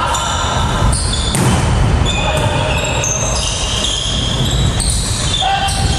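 Volleyball rally in a gym hall: the ball is struck several times and sneakers squeak on the hard court floor, over a steady low rumble of the hall.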